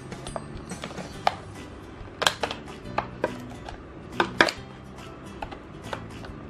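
Scissors snipping through a clear plastic blister tray while the stiff plastic crackles and clacks under the hands. A few sharp snaps, the loudest in pairs about two and about four seconds in, over soft background music.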